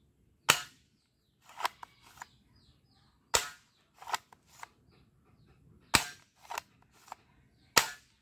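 Plastic toy shotgun being worked and fired: four sharp snaps a couple of seconds apart, with smaller mechanism clicks between them.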